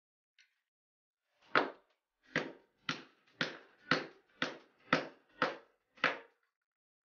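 Hammer tapping a steel punch nine times, about two blows a second, driving the spindle of a Chicago Pneumatic CP854 angle grinder down out of its ball bearing.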